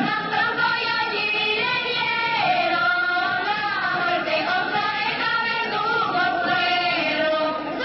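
Music with singing: several voices singing a song together.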